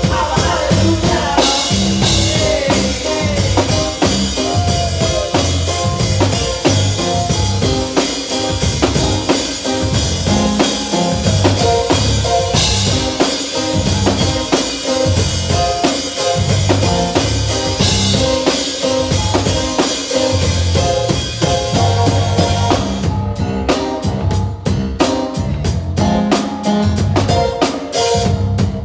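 Live band music led by a drum kit: bass drum, snare and rimshots in a steady groove, with cymbal crashes. About 23 seconds in, the cymbals drop out while the beat carries on.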